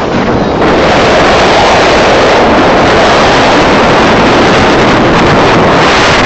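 Loud, steady rushing of wind buffeting the microphone of a moving vehicle. It grows louder about half a second in and cuts off abruptly at the end.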